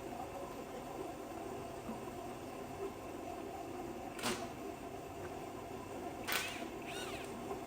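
Steady hum of a shop heater running, with two sharp metallic clicks from hand tools on the engine, about four and six seconds in; the second and louder click is followed by a short falling squeak.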